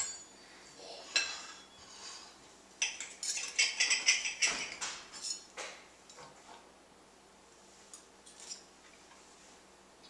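Metal forks and a knife scraping and clinking on ceramic plates as crepes are cut and eaten. The scrapes and clicks come in clusters through the first half, busiest around the middle, then thin out to a couple of faint clinks near the end.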